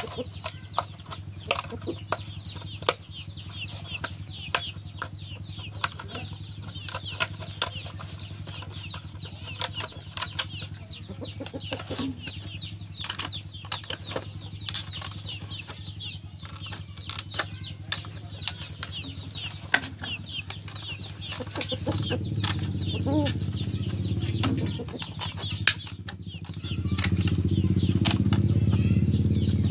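Plastic container being cut with scissors: irregular snips, clicks and crackles of the plastic. Near the end a low steady hum comes in and grows loud.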